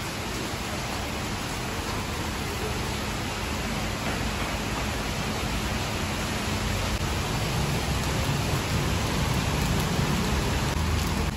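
Steady rain falling on brick paving and a covered parking area, an even hiss that grows a little louder near the end.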